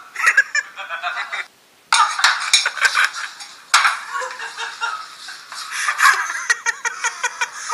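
Several people laughing and calling out in loud, messy bursts, with a sudden half-second drop to silence about a second and a half in.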